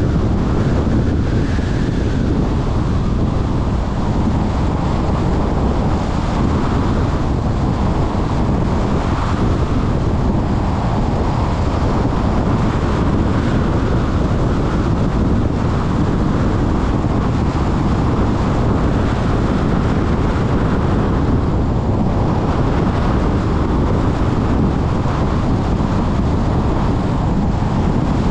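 Steady wind and road noise from a car driving at speed, with wind buffeting the microphone.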